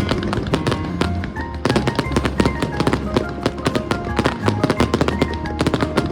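Background music with a steady bass line and quick melodic notes, over dense crackling from an aerial fireworks display.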